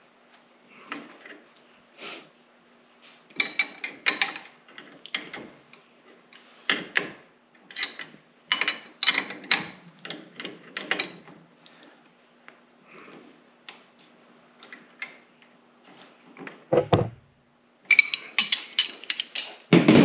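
Steel wrenches clinking and scraping against the steel hydraulic hose fittings of a tractor's single-point hydraulic connector as the fittings are tightened: irregular sharp metallic clicks and knocks, some briefly ringing. A duller, heavier knock comes near the end, followed by a quick run of clicks.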